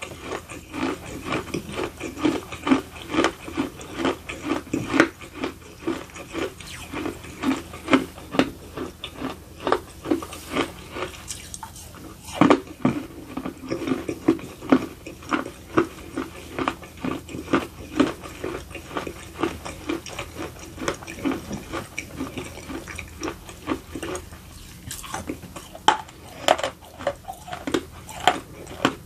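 Close-miked chewing of edible clay with the mouth closed: a steady run of gritty, crunching chews, about two to three a second, with moist mouth sounds and a few sharper crunches.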